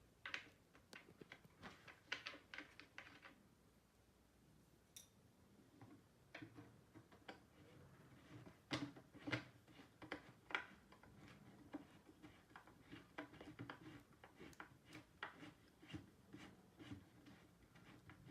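Faint, irregular clicks and taps of engineered-wood furniture panels and small fittings being handled and fastened during assembly, coming in clusters with a few sharper knocks midway.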